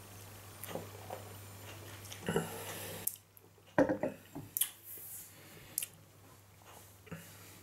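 Mouth sounds of drinking beer from a stemmed glass: a sip, swallowing and lip smacking. The glass is set down on the table with one sharp knock nearly four seconds in.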